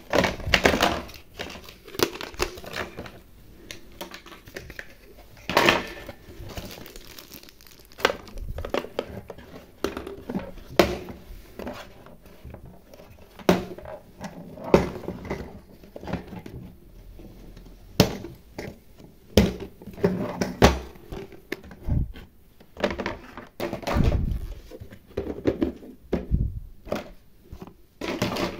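Hard plastic toy kitchen pieces clacking and knocking as they are handled and packed into a plastic carry case, in irregular clicks and taps, with the case's lid snapped shut.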